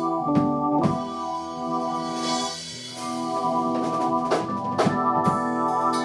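Live band playing an instrumental passage: sustained organ-sound chords from an electronic keyboard, with drum kit strokes over them. The music thins out briefly about halfway through, then picks up again.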